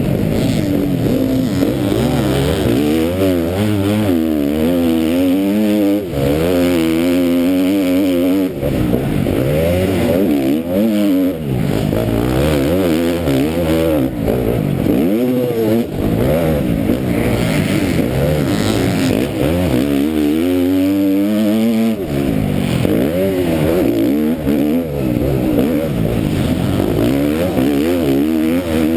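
KTM MX2 motocross bike's engine at race pace, its pitch rising and falling again and again as the rider opens and shuts the throttle and shifts through the gears.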